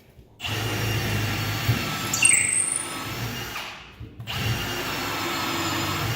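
Power drill boring a hole into a wooden joist, in two runs with a short stop between them.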